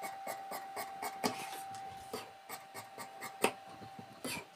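Tailor's scissors cutting through folded cloth along the rounded armhole curve of a kameez sleeve: a run of short, sharp snips, about four a second.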